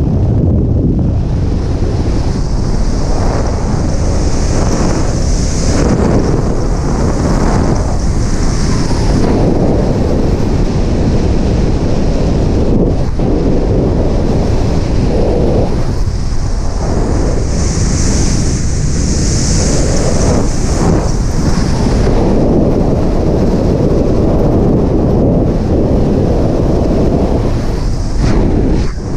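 Freefall wind rushing over a skydiver's camera microphone: a loud, steady buffeting noise with a high hiss on top that swells and eases at times as the bodies shift in the airflow.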